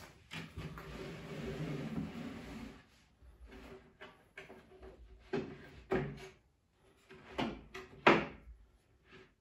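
Treadmill deck board scraping as it is slid in under the rubber running belt for the first few seconds, then a series of separate knocks and thumps as the board is shifted and settled onto the treadmill frame.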